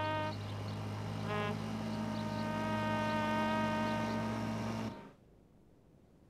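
A trumpet holding long notes, with a quick stuttered run about a second in, over the steady low drone of a small motorboat's engine; both cut off abruptly about five seconds in, leaving near silence.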